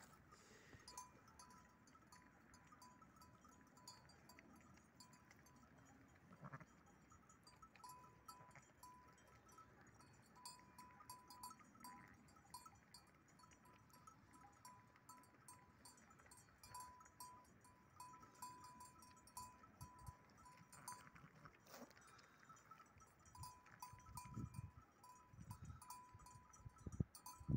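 Near silence, with faint on-and-off ringing of distant sheep bells and a few low rumbles near the end.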